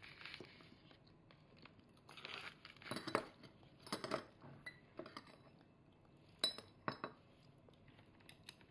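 A child's metal fork clinking and scraping against small dishes as it digs into food: irregular light clicks and scrapes, the sharpest about a third of the way in and again about three quarters through.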